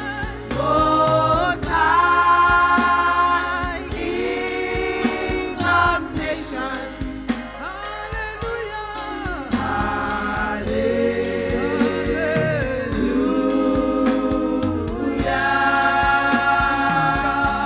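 Gospel worship song: voices singing long held notes with vibrato over a steady drum beat and bass.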